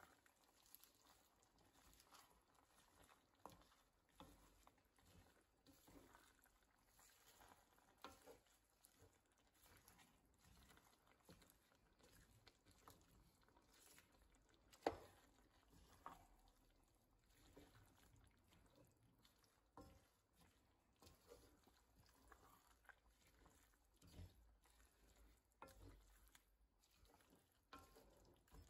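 Faint, quiet stirring: a wooden spoon turning fresh ladder campion leaves through a stew in a nonstick pan, with soft rustles and scattered light taps of the spoon, one sharper knock about halfway through.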